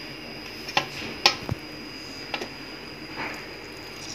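Wet hands squeezing and pressing fresh cheese curd over a steel plate to force the water out, with a few sharp clicks against the plate, the loudest about a second in.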